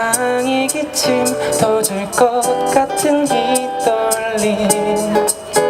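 Live acoustic pop music: a strummed acoustic guitar keeping a steady beat under a melody line.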